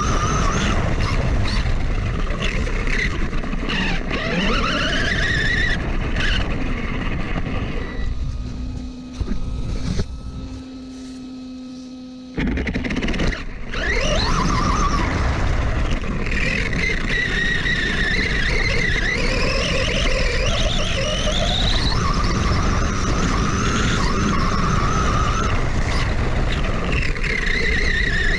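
Brushless electric motor of an FTX Outlaw RC truck (Etronix 3450kv motor and 60A ESC) whining, its pitch sweeping up and down as the truck speeds up and slows, over a rough rush of wind and tyres on grass. About eight seconds in it drops to a quieter steady hum for a few seconds, then whines up again as it accelerates.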